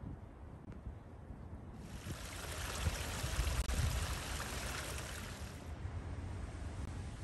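Low wind rumble, then a steady rushing hiss like running water that starts abruptly about two seconds in and cuts off suddenly a little before the end.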